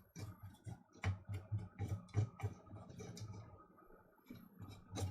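Small irregular scrapes and clicks of a tool working coffee residue off a coffee grinder's push-switch circuit board. Several strokes a second for about three seconds, then a quieter gap and a sharper stroke near the end.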